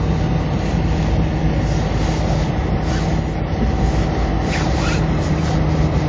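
Steady rumble and hiss in a car's cabin, with a low steady hum under it.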